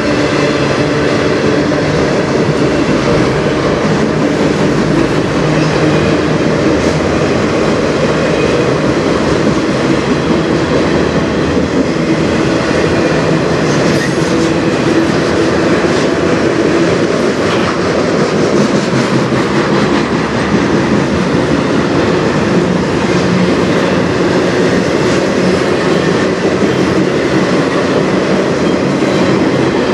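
Freight train autorack cars and flatcars rolling past at speed: a steady rumble and clatter of steel wheels on the rails.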